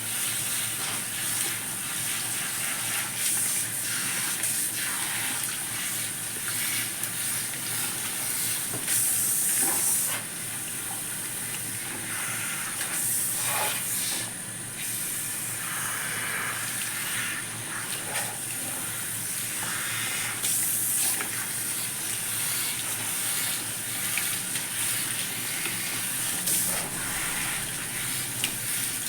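Salon shower head spraying warm water onto a client's hair at the shampoo bowl, wetting it before the shampoo: a steady hiss that swells and dips now and then.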